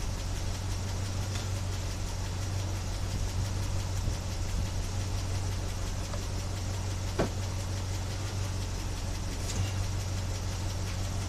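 The engine of a 1976 Chevy Blazer 4x4 idling steadily and a little rough, with one sharp click about seven seconds in.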